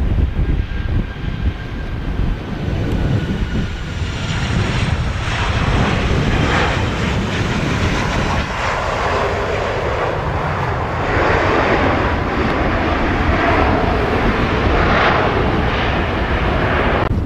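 American Airlines twin-engine jet airliner landing: a falling engine whine and low rumble as it comes over on short final, then touchdown and a loud, rough engine roar that builds through the rollout and is strongest in the second half.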